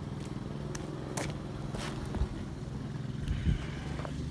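1970 Dodge Challenger R/T's 440 big-block V8 idling steadily through Dynomax Ultra Flo mufflers. Two short thumps sound about two and three and a half seconds in.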